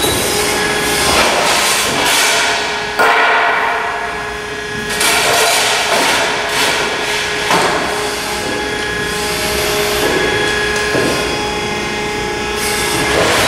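Thalmann ZR long folder at work bending sheet metal: a steady machine hum from its pump, with the long sheet and the beams clanking and rattling and a sharp bang about three seconds in.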